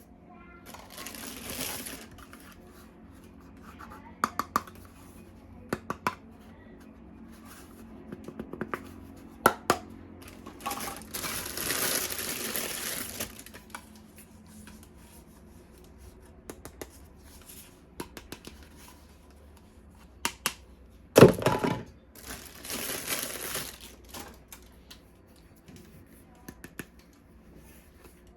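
Plastic packaging crinkling and tearing in three spells, with scattered clicks and knocks of hard plastic toy parts being handled, and one loud knock about 21 seconds in.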